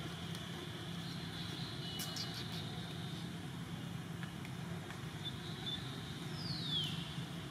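Outdoor ambience: a steady low rumble under a thin, high, steady whine, with a few faint clicks about two seconds in and a short falling whistle near the end.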